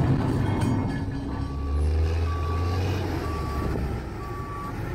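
Large forklift backing away with its reversing alarm beeping about once a second, each beep about half a second long, over the low drone of its engine.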